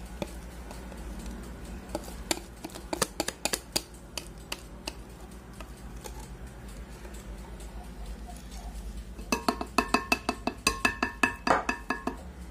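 Metal wire whisk scraping and tapping against glass bowls while thick chocolate cake batter is scraped out: scattered clicks through the first half, then a quick run of ringing clinks near the end.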